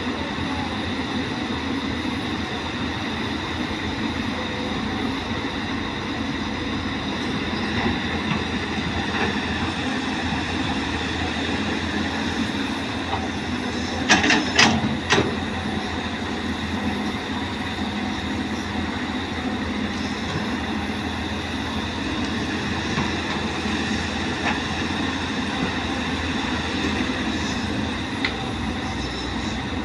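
Caterpillar excavator running steadily, with a short cluster of sharp clanks about halfway through.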